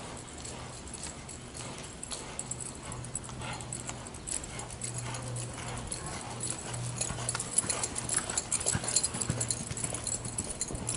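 Hoofbeats of a palomino Quarter Horse mare loping under saddle on soft arena dirt, a run of soft thuds that grows louder and busier through the second half. A steady low hum runs underneath.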